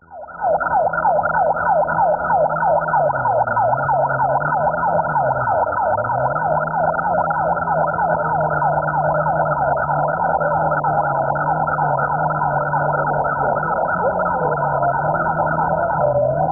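A siren sounding in a fast, evenly repeating falling yelp, starting just after the beginning and going on steadily.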